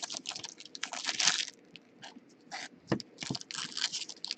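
Trading-card packaging and cards being handled: a run of small crinkles, rustles and clicks as a pack is opened and the cards are gone through, densest about a second in.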